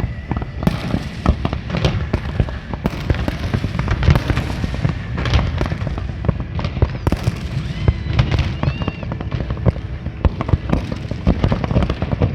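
Fireworks display: a continuous barrage of rapid bangs and crackling bursts over a steady low rumble.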